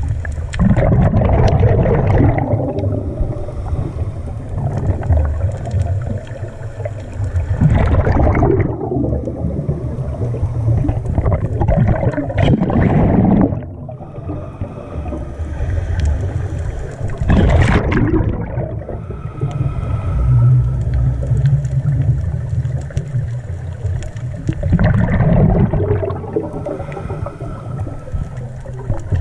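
Underwater bubbling and rushing water heard through a submerged camera, with a steady low rumble and louder gurgling surges every five to seven seconds.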